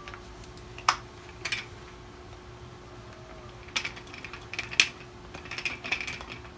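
Sharp plastic clicks and snaps from the vacuum storage bag's air valve and its cap being handled, a handful of separate clicks with the loudest near the five-second mark and a quick cluster after it, over a faint steady hum.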